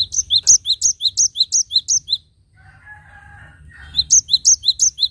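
Cinereous tit (gelatik batu) singing: loud, rapid two-part whistled notes repeated about four times a second. They come in two phrases, with a pause of about a second and a half between them.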